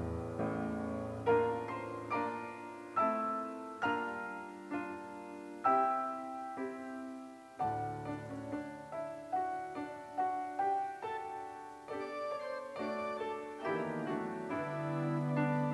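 Grand piano playing slow offertory music: a melody struck note by note over sustained chords and low bass notes.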